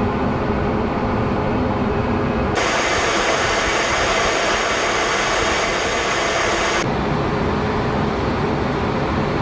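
Steady jet aircraft noise with a low hum underneath. About two and a half seconds in it switches abruptly to a brighter, hissier rush, and a few seconds later it switches back.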